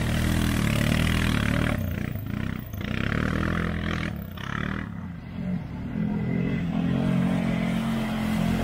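ATV engine running under throttle. It eases off and comes back twice in the middle.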